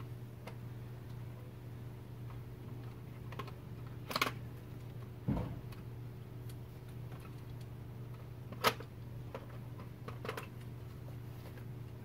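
Scattered light clicks and knocks of hands and tools working on a plastic car-console trim piece while a USB socket is set in it. There are a few sharp clicks, the loudest about two-thirds of the way through, over a steady low hum.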